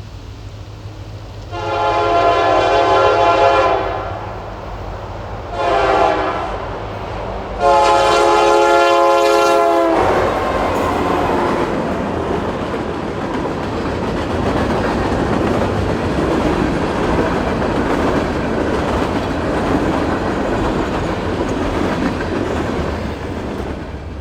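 Nathan Airchime K3LA three-chime horn on Union Pacific 4553 sounding a long blast, a short blast and a long blast, the close of the grade-crossing signal. From about ten seconds in, the locomotive and its train roll past with a steady rush of wheel and rail noise.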